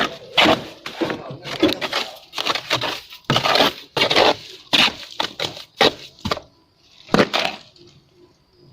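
Plasterer's trowel scraping and slapping cement render onto a wall in short, irregular strokes, about two a second, thinning out near the end.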